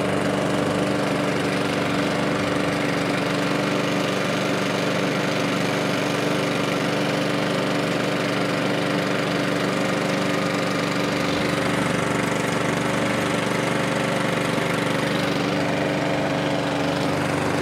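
McCulloch M40 120 Classic petrol lawnmower engine running steadily at an even speed just after starting. It is burning off oil that has gathered in its exhaust, which the owner puts down to the mower being tipped the wrong way or overfilled.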